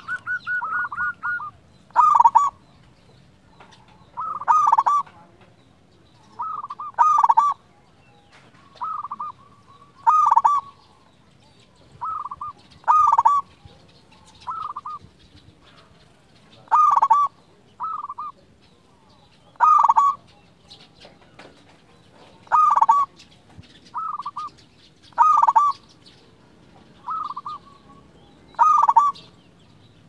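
Zebra doves (perkutut) cooing: short, repeated phrases of soft notes that come every one to three seconds, some close together as if answering each other.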